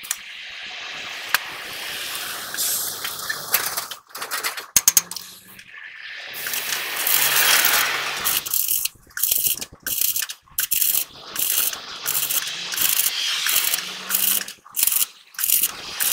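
Stick welding arc crackling and sizzling as a rod welds over holes in a truck's steel axle housing. The crackle is steadier at first, then comes in short runs of about a second, cut off by sudden breaks each time the arc is stopped and struck again.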